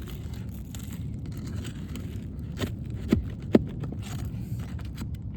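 Scraping of metal tools working under asphalt shingles to free the nails, over a steady low rumble, with three sharp clinks about halfway through.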